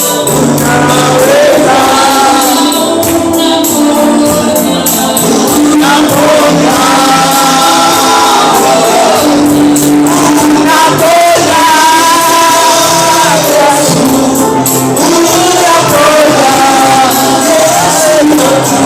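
Swahili gospel song: a choir singing over a band, with tambourine and a steady beat.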